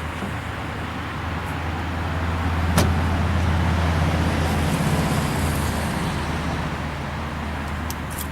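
A motor vehicle passing by: a low hum and road noise that swell to a peak a few seconds in and then fade away, with one sharp click about three seconds in.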